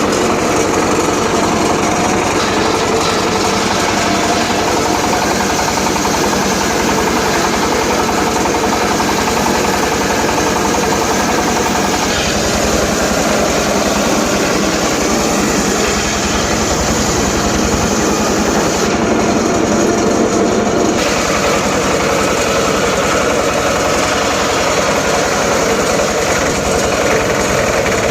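Homemade circular saw rig running and sawing teak timber, a loud continuous machine sound whose tone shifts a couple of times partway through.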